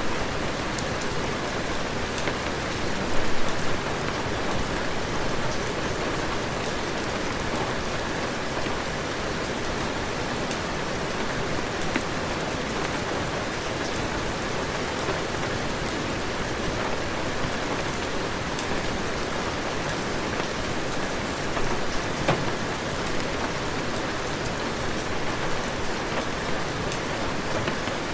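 Heavy rain falling steadily, an even hiss with scattered sharp drip ticks and a couple of brief louder gusts.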